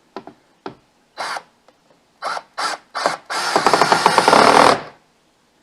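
Black+Decker 20V cordless drill driver driving a screw: a few light clicks, four short squeezes of the trigger, then one longer run of about a second and a half that stops suddenly.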